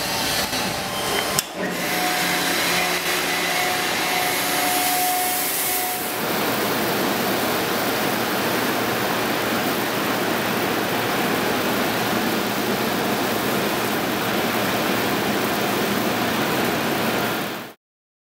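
Automatic soft-cloth car wash running: a steady rush of spraying water and spinning cloth wash strips. For the first six seconds a steady machine whine runs underneath, and there is a single knock about a second and a half in.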